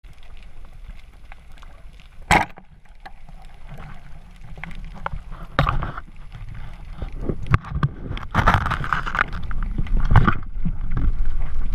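Underwater sound of a speargun firing: one sharp snap about two seconds in, followed by muffled water rumble with several knocks and rushes as the speared fish is hauled in on the shaft.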